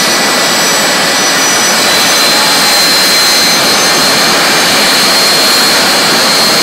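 Jet dragster's turbine engine running at the starting line: a loud, steady rush with a thin high whine over it.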